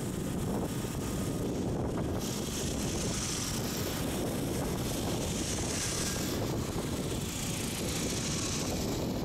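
Steady low rumble of a car driving slowly, heard from inside the cabin, with a higher hiss of air or wind coming in about two seconds in.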